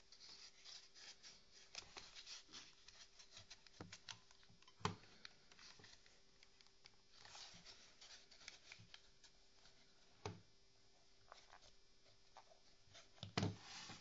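Hands handling and turning a Glock 17-style pistol with a stippled plastic grip: faint rubbing and small clicks, with a few light knocks. The loudest is a thump shortly before the end, as the pistol is set down on a wooden table.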